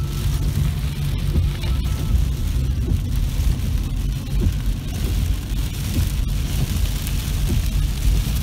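Heavy rain on a car's windshield and roof, heard from inside the moving car over a steady low road and engine rumble. The rain hiss grows louder about halfway through, with a few sharp clicks.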